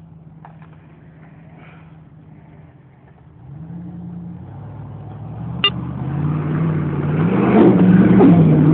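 Jeep Cherokee engine idling, then revving up about three seconds in and running hard under load as the SUV climbs out of a muddy hole, growing louder and rougher toward the end.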